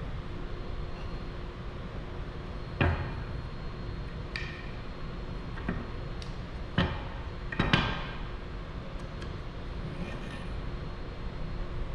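Wooden face frame rails and stiles knocking together as they are pushed onto loose tenons in a dry fit: about five sharp wooden knocks spread over several seconds, over a steady low hum.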